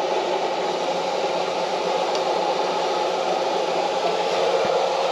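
Steady rush of air blowing from the 4-inch cabin vent of a 12-volt marine air conditioner (Mabru SC12DC) that is running. It swells slightly at the start.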